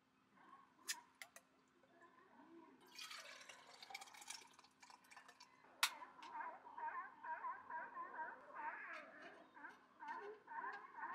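Cooking sounds from a portable butane camp stove: handling clicks and crackle, then one sharp click of the stove's igniter about six seconds in, followed by a run of quick gurgling.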